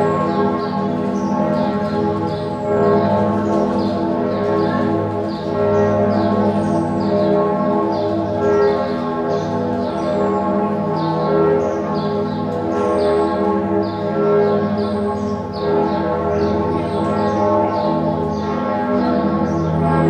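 Bern Minster's church bells ringing together in a full peal. Several bells strike over one another so the tones merge into one dense, continuous ringing with no pause.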